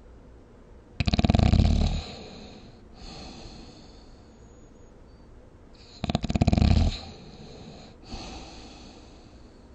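Snoring: two loud, rattling snores about five seconds apart, each followed by a softer breath.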